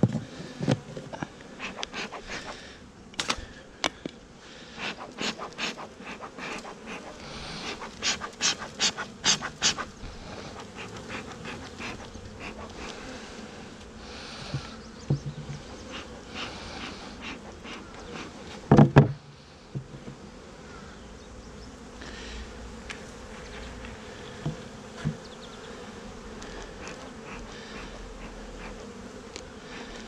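A honeybee colony buzzing steadily in an opened hive, with a string of sharp clicks and knocks from hive parts being handled and one loud thump about two-thirds of the way through.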